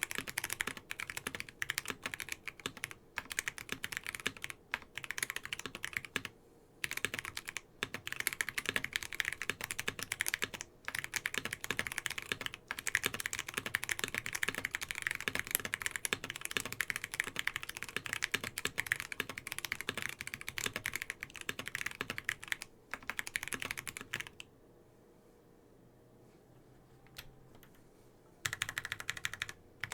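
Typing on a mechanical keyboard with lubed KTT Onyx switches, PBT keycaps and a polycarbonate plate: a rapid run of keystroke clacks with short breaks. Near the end the typing stops for about four seconds, then starts again.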